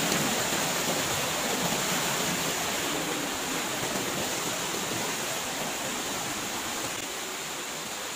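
Shallow rocky stream rushing over boulders: a steady hiss of running water that slowly grows fainter.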